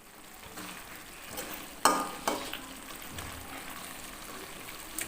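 Ayam woku, chicken in a spiced sauce, sizzling in a pan while it is stirred. A utensil knocks twice against the pan about two seconds in.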